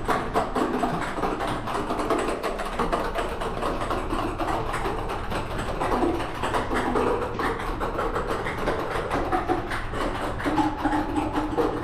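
A small white ball running down an acrylic ball track along a spiral staircase, making many light taps as it drops and rolls from one clear plastic shelf to the next.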